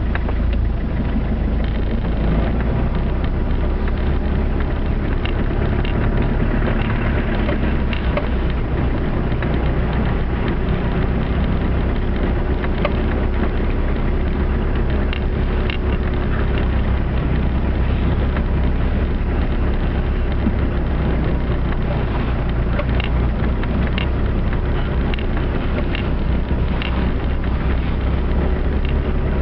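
Land Rover Discovery 300Tdi's 2.5-litre four-cylinder turbodiesel running steadily while driving along a snow-covered track, heard from inside the cab, with scattered light clicks over it.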